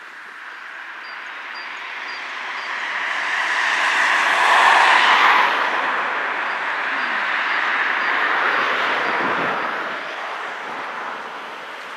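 Road traffic noise: a passing vehicle swells to its loudest about five seconds in, stays loud for a few seconds, then fades toward the end.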